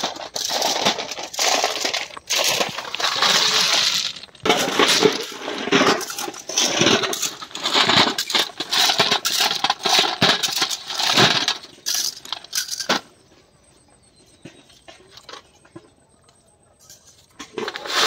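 Crushed-stone railway ballast crunching and clattering in a quick run of bursts, about two a second, which stops about thirteen seconds in.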